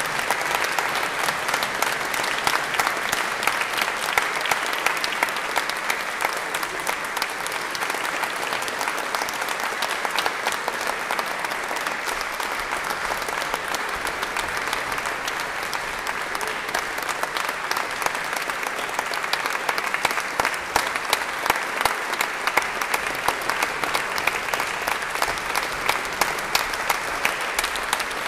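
Concert audience applauding: dense, steady clapping throughout.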